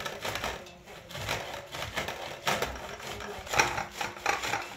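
Fresh corn cob grated on a stainless-steel box grater over a steel plate: quick repeated scraping strokes, about two to three a second.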